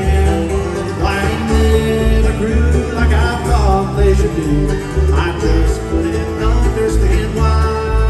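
Live bluegrass band playing, a male lead vocal over plucked strings and a bass beat about twice a second.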